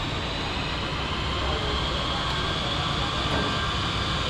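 Steady machine noise with a faint high whine over it, running evenly.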